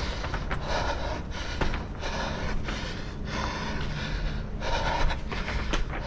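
A runner breathing hard in irregular gusts close to the microphone, with a faint steady low hum underneath.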